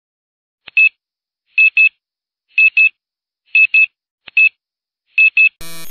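Bomb-timer countdown sound effect: short, high electronic beeps, mostly in pairs, about once a second. A burst of harsh noise cuts in just before the end.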